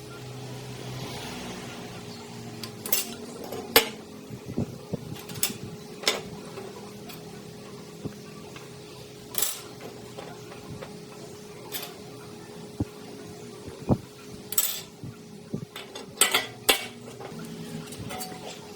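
Irregular metallic clinks and taps of metal objects being handled and set down, a dozen or so spread unevenly, over a faint steady hum.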